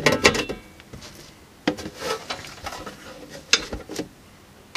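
Knocks, clunks and scrapes of a metal-cased bench power supply being handled, turned around and set down on a workbench. The sharpest knocks come near the start and about three and a half seconds in.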